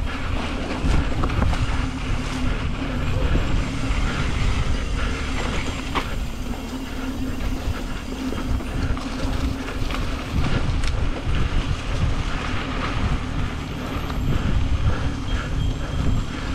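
Yeti SB150 full-suspension mountain bike ridden fast along a dirt trail: tyres rumbling over the ground while the bike rattles in quick, irregular knocks, with wind buffeting the microphone.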